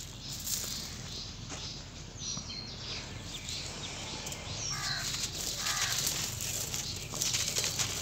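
Dry, gritty sand-cement and pebbles shaken and sifted through a round wire grate by hand: a steady crackling patter of grit with small rattling clicks. Near the end a crumbly lump is broken apart in the hands. A bird calls several times in the background around the middle.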